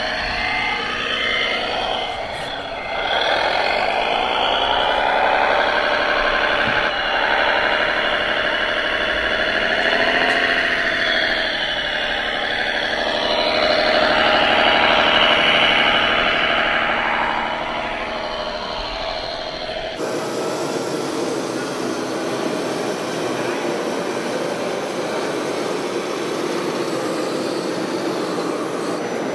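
Radio-controlled model tractor running, a whine whose pitch rises and falls. About two-thirds of the way through it changes abruptly to a steady rushing noise with no clear pitch.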